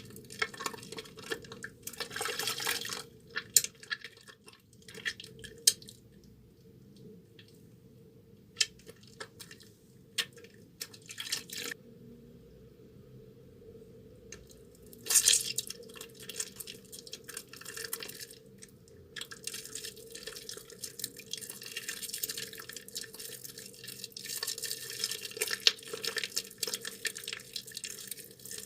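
Hands working a soaked, softened bar of soap with water: irregular wet squelching, crackling and dripping as it lathers into foam, with a quieter pause about halfway through.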